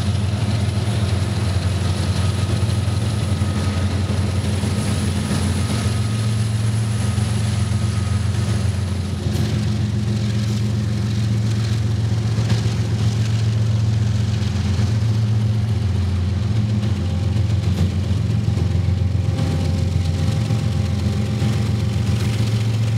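Diesel locomotive engines running steadily with a deep, even drone. A faint high whine over it stops about nine seconds in.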